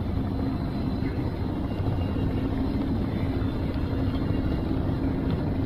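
Boat engine running at a steady, unchanging pitch: a constant hum over a low rumble.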